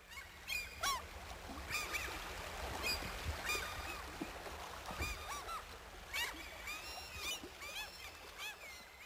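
A flock of waterbirds calling, many short calls that rise and fall in pitch, overlapping one another throughout, over a steady low background rumble.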